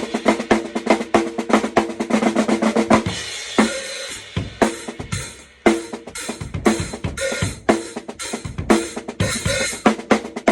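Drum kit played: a fast, dense run of snare and drum strokes for about three seconds, then slower, spaced hits of kick, snare and cymbals.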